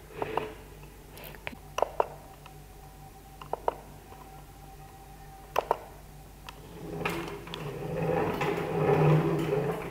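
Amber B1 7-axis robot arm's joint motors whirring as the arm moves, building from about seven seconds in, strongest near the end, then easing off. Before that come four pairs of sharp clicks, over a steady low hum.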